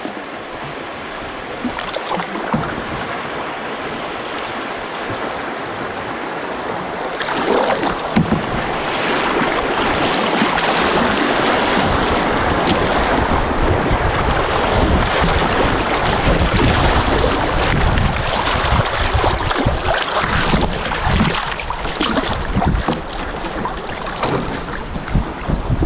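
Rushing water of a shallow river rapid as a canoe runs through it, growing louder about seven seconds in. Wind rumbles on the microphone through the second half.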